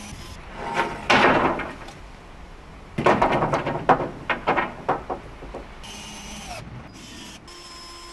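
Wooden roof slats being handled: a loud scraping rasp about a second in, then an irregular clatter of wooden knocks that dies away.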